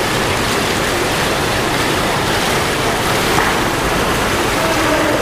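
Steady rushing splash of water churned by water polo players swimming and grappling for the ball.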